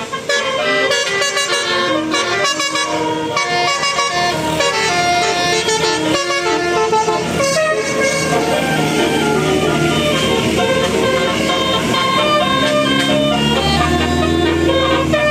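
Telolet Basuri multi-tone bus air horn playing a quick melody of short, stepped notes. A low rumble grows near the end.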